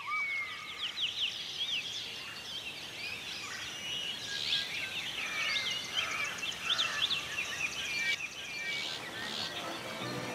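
Night jungle ambience: many short chirping calls of birds or other small animals, overlapping over a soft steady hiss.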